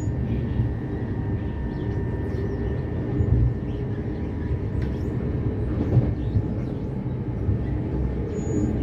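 Running noise inside a c2c electric passenger train moving at speed: a steady low rumble of wheels on rails with a faint steady whine, and a couple of knocks about three and six seconds in.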